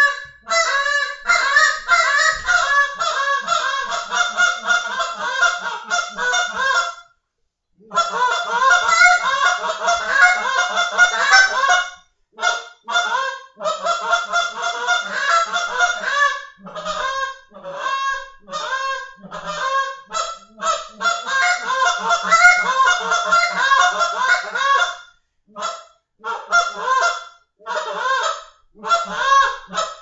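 RNT Dirty Bird short-reed goose call blown in fast runs of honks and clucks, imitating geese in the field. There is a short break about seven seconds in, and a stretch of more spaced single notes in the middle.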